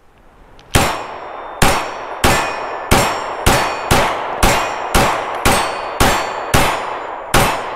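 A SAR K12 Sport 9mm pistol firing a steady string of about a dozen shots, roughly two a second, each shot trailing off before the next.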